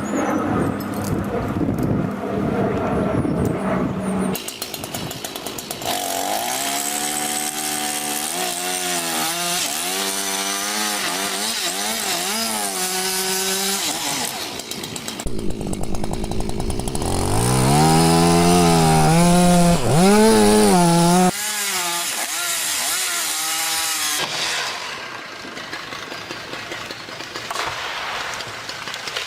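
Two-stroke chainsaw running and cutting, its engine note repeatedly rising and falling as the throttle is worked and the chain bites into the wood. It is loudest near the middle, then settles to a lower, steadier running note.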